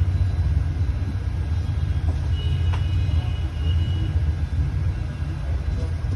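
Steady low rumble or hum, with a faint click a little before the middle.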